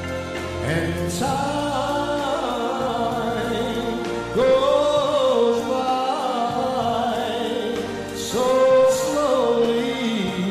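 A male singer singing into a handheld microphone over instrumental accompaniment, holding long notes that bend in pitch; the loudest held notes come about four and eight seconds in.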